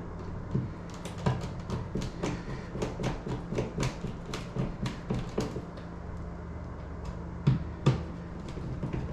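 Rocker switch cover plate being handled and screwed onto the wall box: a run of irregular small clicks and taps over a steady low hum.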